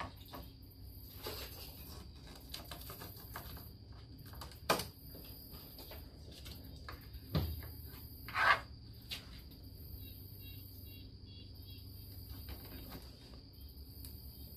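Quiet hand-work noises from a utility knife trimming Gorilla Tape on the plastic snorkel mounts: scattered light ticks and rustles, a sharp knock, a low thud, and a short scraping rasp about eight and a half seconds in, the loudest sound.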